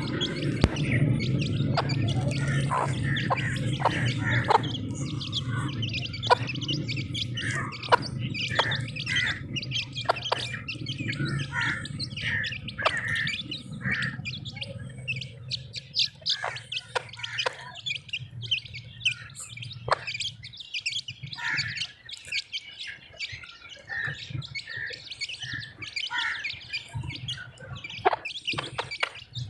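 Domestic chicks peeping, with many short high chirps running on and overlapping, mixed with occasional sharp clicks. A low steady rumble sits under the first half and fades out about halfway through.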